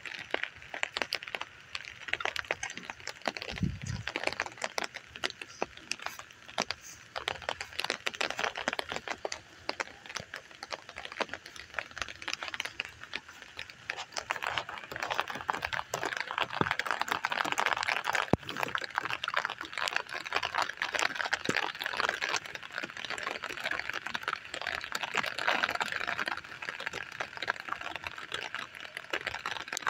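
Rain pattering steadily as a dense, irregular patter of drops, growing louder through the middle of the stretch.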